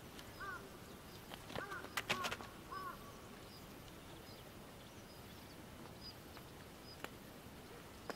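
A few sharp knocks and scrapes about two seconds in as a rider steps off a unicycle onto asphalt. Around them comes a short run of birds' arched chirps, and there is one click near the end.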